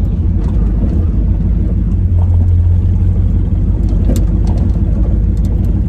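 Chevrolet Camaro heard from inside its stripped cabin while driving: a steady engine and road rumble that swells briefly about two seconds in. A few light clicks and rattles come near the end.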